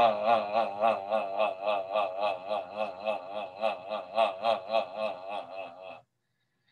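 A man's voice holding one sustained vowel while he bounces from the knees. The bouncing shakes the tone, so its pitch and loudness wobble about four times a second. The sound stops abruptly about six seconds in.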